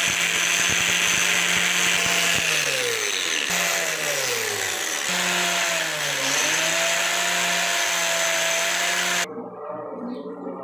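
Electric power tool motor running steadily while polishing pliers, its pitch sagging twice. It cuts off suddenly near the end, leaving a much quieter sound.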